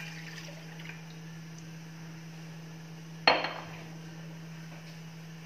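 Milk poured from a glass into a stainless steel saucepan, then a single sharp knock about three seconds in. A steady low hum runs underneath.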